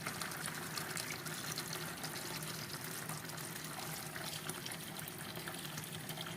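Running water as freshly picked chili peppers are rinsed by hand, with small splashes and clicks throughout. A faint low steady hum sits underneath.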